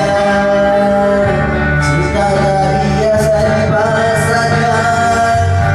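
Singing of a pop ballad over instrumental backing, with long held notes.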